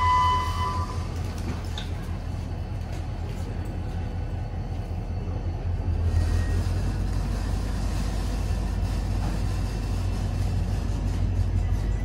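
ITX-Saemaul electric train departing from the platform: a steady low rumble and hum that grows a little louder about halfway through. A short electronic beep sounds at the very start.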